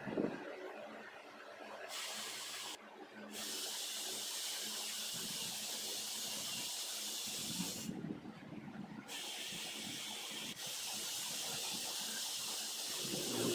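Drive motors of a small homemade wheeled robot cart running as it moves, a steady high hiss that stops briefly twice and starts again.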